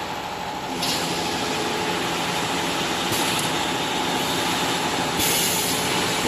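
CNC rebar sawing line running, with the steady noise and hum of its roller conveyor and drive motors. Bursts of hiss come in about a second in, again around three seconds, and from about five seconds on.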